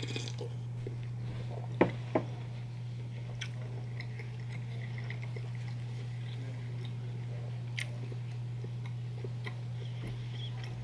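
A sip of coffee from a paper cup, then two sharp knocks about two seconds in as the cup is set down on the table. After that comes quiet close-up chewing and mouth clicks from eating an English muffin breakfast sandwich, over a steady low hum.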